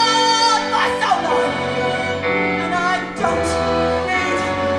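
Musical-theatre song: a female voice sings held notes, sliding between pitches, over instrumental accompaniment.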